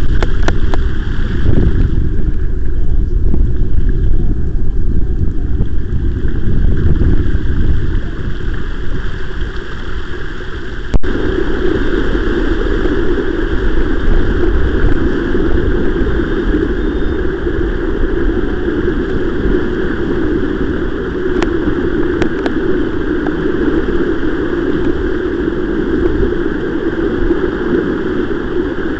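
Wind rumbling on the microphone of a camera riding along a flooded path, with tyres swishing through puddles and standing floodwater and a few light clicks. There is an abrupt break about eleven seconds in, after which a steadier rushing noise takes over.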